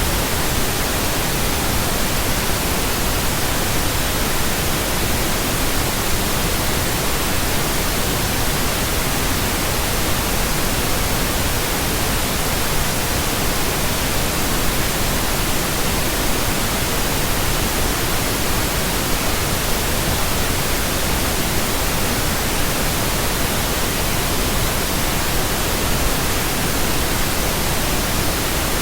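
Steady synthetic pink noise: an even, unchanging hiss with no tones or breaks.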